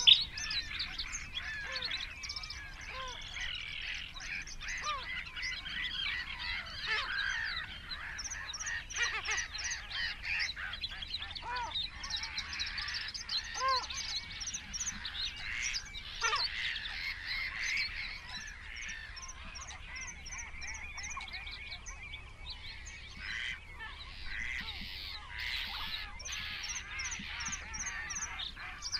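Several songbirds singing together in a busy chorus of chirps and warbles, with quick runs of high thin notes. Every few seconds a bird gives a short, lower call.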